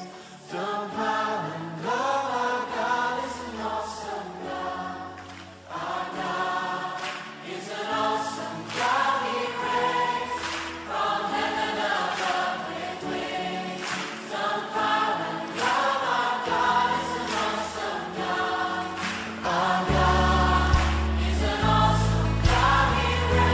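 Choir singing a Christian worship song with backing music; a deep bass line comes in near the end.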